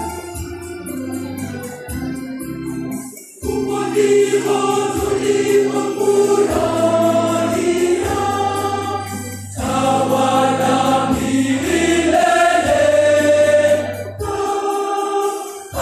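Church choir singing a gospel hymn in phrases, over a steady low accompaniment, with short pauses between phrases about three, nine and fourteen seconds in.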